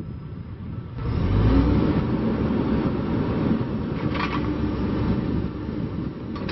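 2011 John Deere 410J backhoe loader's diesel engine running, picking up speed about a second in and then holding steady, with a brief hiss about four seconds in.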